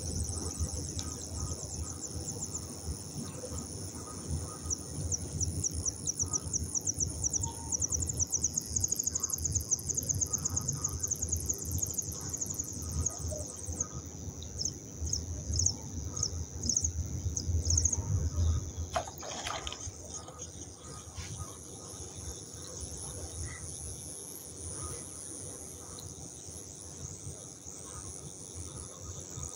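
A thin stream of water trickling into a steel bowl onto chunks of dry clay, which soak and fizz as they take up the water. A high, rapid chirping runs over it.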